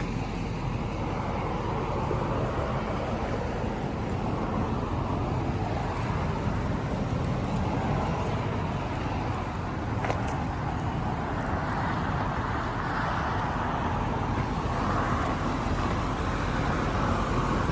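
Steady motor-vehicle noise: a low rumble with a hiss that swells and fades gently.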